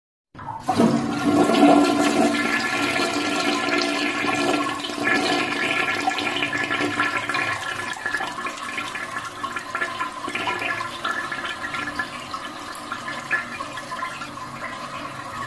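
Toilet flushing: water rushes in suddenly, loudest in the first couple of seconds, with a few steady tones in the rush, then slowly settles into a quieter, continuous running of water.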